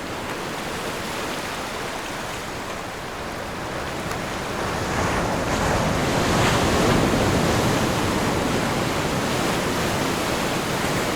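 Ocean surf: a steady wash of waves on a beach, swelling louder about five to seven seconds in as a bigger wave breaks and rushes in.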